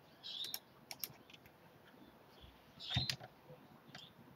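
Faint, scattered clicks of a computer mouse and keyboard, with one louder click about three seconds in.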